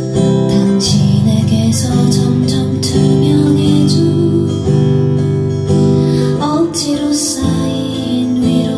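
Steel-string acoustic guitar strummed in slow, even chords, about one strum a second.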